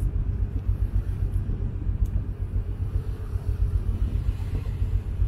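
Wind buffeting the microphone on a boat under way: a loud, uneven low rumble.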